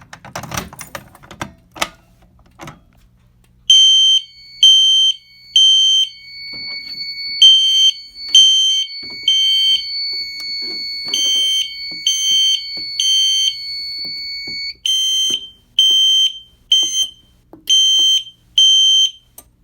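A Fire-Lite BG-12LR pull station is pulled with a few sharp clicks. About three seconds later a fire alarm horn starts sounding in the code-3 temporal pattern: three short shrill beeps, a pause, then three again, repeating. A thin steady tone runs beneath the beeps for about ten seconds and then stops.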